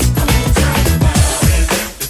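Early-1990s dance music with a steady driving beat, bass line and synths, thinning out and dipping in level near the end.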